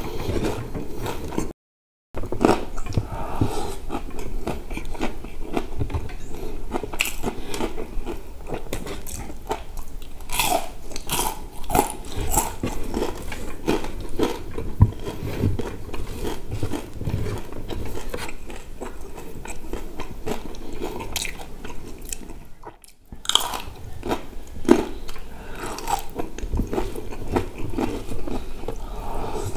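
Close-up chewing and mouth smacking of fried chicken and rice eaten by hand, with crunching of the crispy coating. The sound cuts out completely for about half a second about two seconds in.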